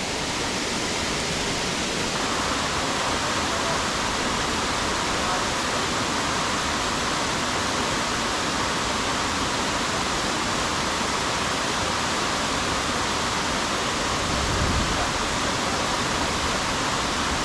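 Mountain stream and waterfall water rushing in an even, unbroken hiss.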